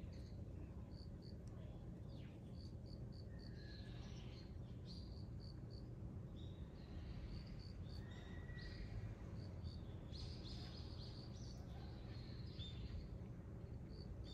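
Faint outdoor ambience: short high chirps repeating in groups of two to four throughout, with a few other brief calls in between, over a steady low background hum.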